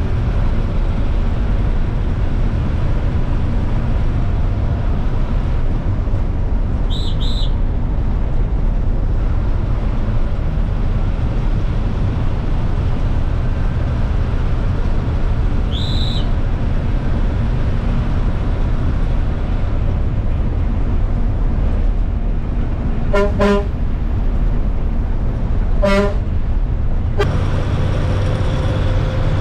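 Bus engine and road noise heard from the driver's cab of a moving bus, with two short horn honks about two and a half seconds apart near the end. Two brief high chirps sound earlier, and the engine note changes just before the end.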